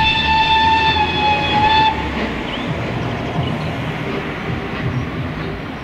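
The whistle of GWR Castle-class 4-6-0 steam locomotive 7029 'Clun Castle' gives one long steady note and stops about two seconds in. Then the locomotive and train run on with a rough, uneven rumble.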